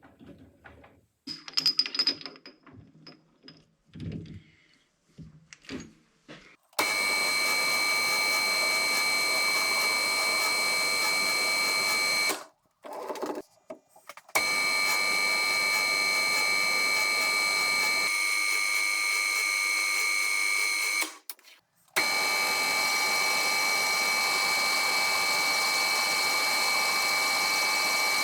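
Metal lathe running with a steady whine, three long stretches broken by brief stops with clicks, as it turns an aluminium replacement pin. The first few seconds hold scattered tool-handling clicks and knocks.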